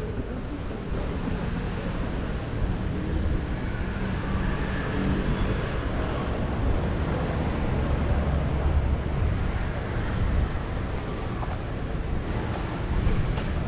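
Steady low rumble of city street ambience, with faint engine hum in the first half.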